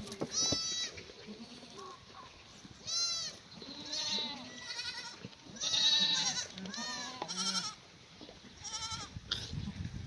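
A herd of Korean black goats bleating, about eight calls from several animals, some overlapping and some higher-pitched than others. The loudest bleat comes about six seconds in.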